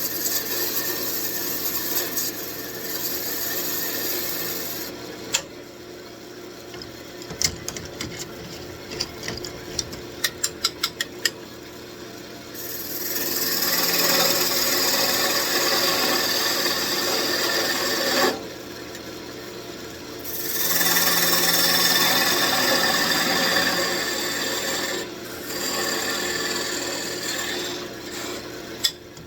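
Wood being cut on a spinning wood lathe: a steady scraping, shaving sound that comes in spells of a few seconds with quieter gaps between. A quick run of light clicks falls in a quieter stretch about ten seconds in.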